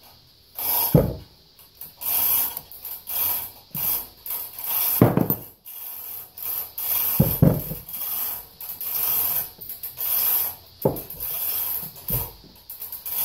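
Cast-iron John Deere 3 HP hit-miss engine cylinder head being handled and turned over on a workbench: scraping and rubbing, with five or six dull knocks as it is set down and shifted.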